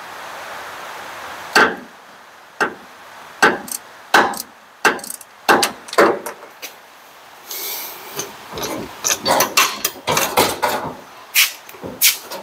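Hand tools knocking and clinking on the Model T's torque-tube bolts as the tube is worked loose. The sharp, irregular clicks come thicker in the last few seconds, with a brief scraping rasp about halfway through.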